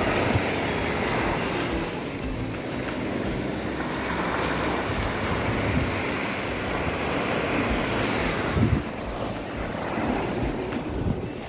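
Surf washing onto a sandy beach, swelling and easing over a few seconds, with wind buffeting the microphone.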